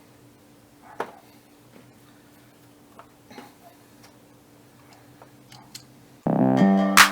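Scattered light clicks and taps, the loudest about a second in, over a faint steady hum. About six seconds in, electronic music with a drum beat starts loudly.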